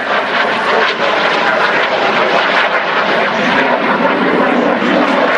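A display aircraft's engines running loud and steady as it flies.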